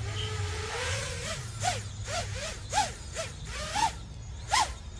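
FPV quadcopter's brushless motors and propellers spooling up with a rising whine as it takes off, then a string of quick throttle punches, each a short rising-and-falling whine with a whoosh of prop wash.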